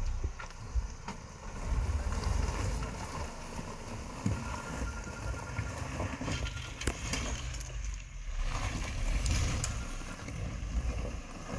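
Tata Nexon driving slowly over a rough, broken road: a low, uneven rumble with occasional short knocks.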